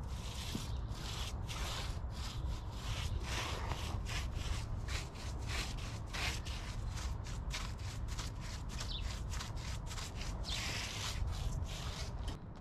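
A small paintbrush scrubbing sealant primer into the rough joint between brick, concrete sill and concrete walk. It makes short, bristly rubbing strokes, about three a second, over a steady low rumble.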